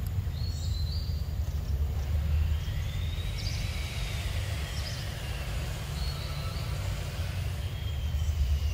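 Steady low background rumble, with faint long whines that rise and fall slowly every few seconds.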